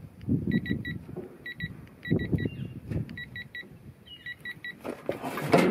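Quinn digital torque adapter beeping in short triplets, five times over, as a truck lug nut is pulled up to torque, over low creaks and thumps of the wrench being heaved. A louder scraping rush comes near the end.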